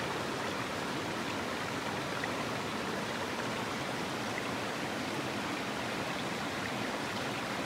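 Steady rushing of a flowing stream, an even, unbroken wash of water noise.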